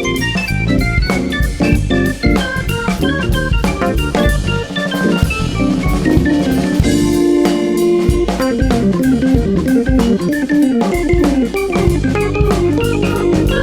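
Jazz-fusion band playing live: drum kit, keyboards and bass. About seven seconds in, the bass and drums drop out for a held note, then a falling run of notes leads the groove back in.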